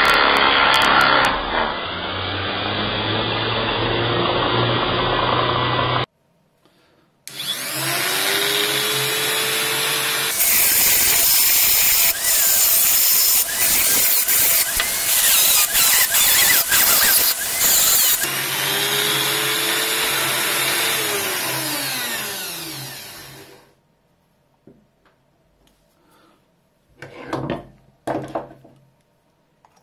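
Rotary tool on a flexible shaft grinding and polishing the metal tab on top of the bell. The first run cuts off suddenly. The motor then spins up again with a rising whine, grinds with loud scratchy contact, and winds down with a falling whine. A few handling clicks come near the end.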